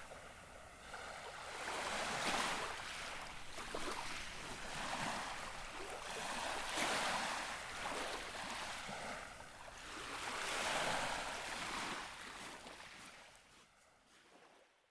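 Gentle waves lapping on the shore, each wash swelling and ebbing every few seconds, fading away over the last few seconds.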